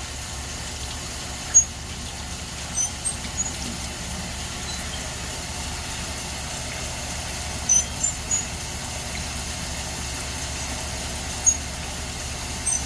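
Wet, freshly cut agate slabs being scrubbed by hand with soap and water, giving short, high squeaks every few seconds over a steady low hum.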